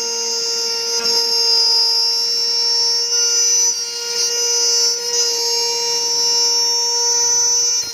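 Router running at a steady high-pitched whine while it mills an arc-shaped slot through an acrylic sheet. There are brief dips in loudness about four and five seconds in.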